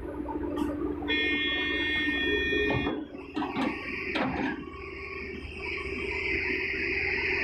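Large hydraulic excavator's diesel engine running under load as the bucket empties soil and rocks into a dump truck. About a second in, a steady high-pitched tone sounds for roughly two seconds. Midway, several knocks of clods hitting the truck bed come over a hissing noise.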